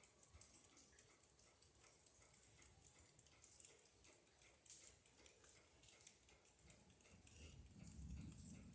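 Near silence: faint scattered ticks and patter, with a low rumble building near the end.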